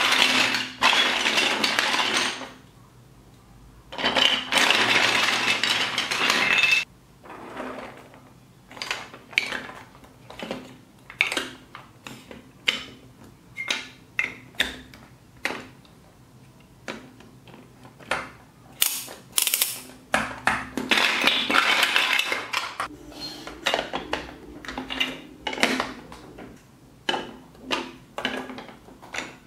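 Large plastic building blocks clattering as hands rummage through a pile of them, in three dense bursts. Between the bursts come many separate sharp clicks and taps as bricks are pressed together.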